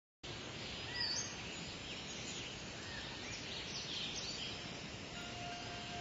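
Birds chirping with short sweeping calls over a steady outdoor hiss. About five seconds in, a held keyboard note comes in and sustains beneath them.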